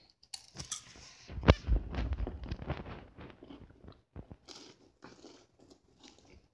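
Irregular clicks and crackling from a lighter being worked and handled, with one sharp thump and a brief low rumble about one and a half seconds in.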